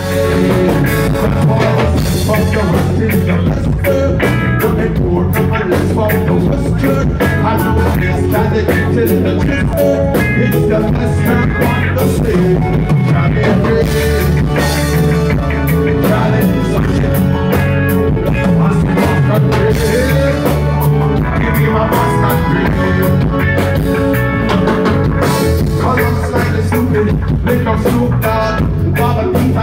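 Live reggae band playing at full volume through a PA: drum kit, electric guitar and bass guitar over a steady beat.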